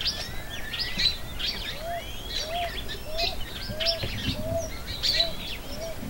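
A flock of feeding birds, red-cowled cardinals among them, chirping and twittering in many short high calls. From about a second and a half in, a dove coos in a steady series of low notes, about two a second.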